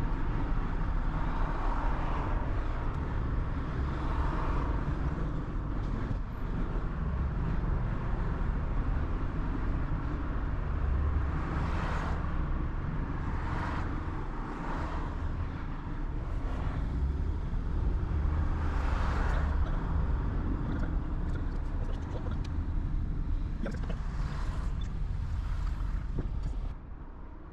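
Road noise of a car driving on a highway: a steady low rumble with tyre hiss, and other vehicles swishing past now and then. The noise drops sharply near the end.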